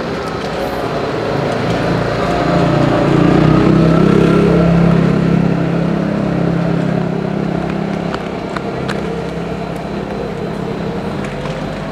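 A motor vehicle's engine running close by, its low hum swelling to a peak a few seconds in and then slowly easing off, as of a vehicle passing or pulling up. A few light clicks come near the end.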